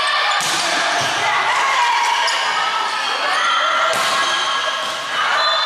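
A volleyball struck sharply about three times, at about half a second, a second and four seconds in, over loud shouting from players and spectators.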